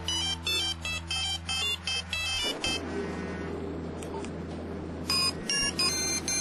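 Electronic soundtrack of short, bright beeping tones, about three a second, over a steady low hum. A little before halfway the beeps give way to a hiss for a couple of seconds, then return more densely near the end.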